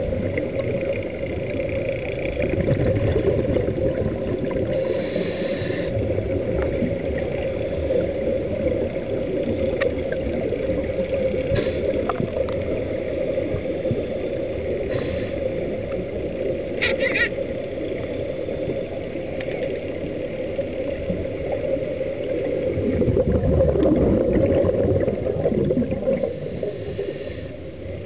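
Underwater sound of scuba diving: a steady low drone, with a hissing, gurgling burst of a diver's exhaled regulator bubbles about every ten seconds and a few faint clicks.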